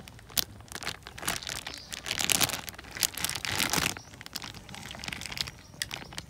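Rustling and clicking of ingredients being handled and mixed while the lotus-stem salad is made, in irregular bursts that are loudest about two to four seconds in.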